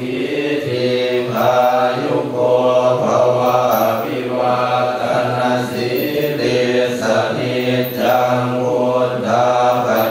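A group of voices chanting Buddhist verses in Pali together on a steady, low, near-monotone pitch, in continuous rhythmic phrases.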